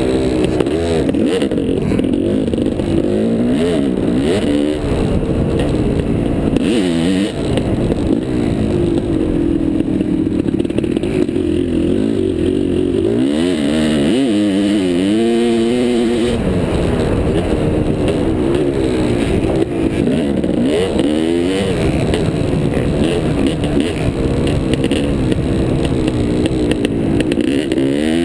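Dirt bike engine running hard around a motocross track, its pitch rising and falling again and again as the rider opens and closes the throttle and shifts gears.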